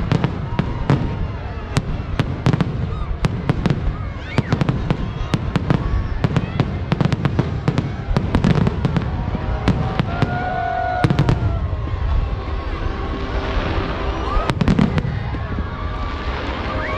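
Aerial fireworks shells bursting in quick succession: many sharp bangs, several a second, over a continuous low rumble of booms.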